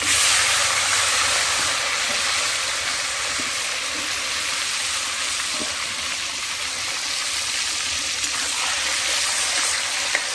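Cut raw potatoes going into hot oil and frying, with a loud hissing sizzle. It jumps up sharply as they go in, then settles to a steady sizzle.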